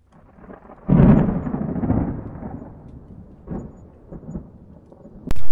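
Intro sound effect for an animated logo: a short swell, then a sudden loud boom about a second in that dies away in a thunder-like rumble with a few smaller surges, and another sudden loud hit just before the end.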